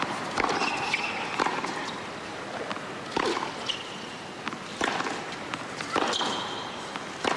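Tennis rally on a hard court: the ball struck back and forth by racquets about every one to two seconds, with short high squeaks between the shots.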